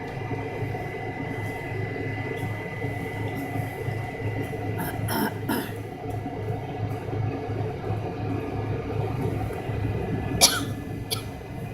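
Cabin noise of an MD-83 airliner with its rear-mounted Pratt & Whitney JT8D engines running: a steady rumble with a thin high whine over it. Short knocks sound about halfway through and, louder, near the end.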